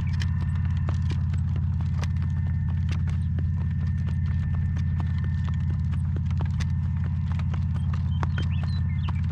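Gale-force wind rumbling steadily on the microphone, with a horse's hooves clopping at a walk in irregular sharp clicks.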